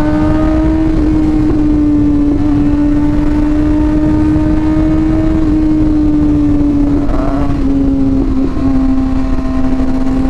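Big-bike motorcycle engine running at a steady cruising speed, its note holding nearly level, over a low rush of wind noise.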